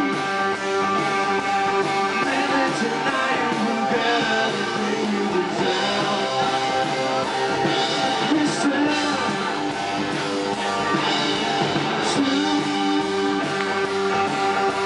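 Live rock band playing a song: electric and acoustic guitars, keyboard and drums.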